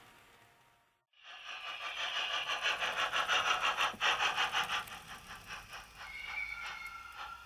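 H0-scale model steam locomotive running with its train, a fast, regular rhythmic clatter that starts suddenly about a second in after a brief fading hiss. Two short high tones sound one after the other near the end.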